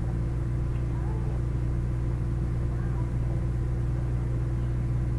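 Steady low hum of room noise, with faint murmuring voices now and then.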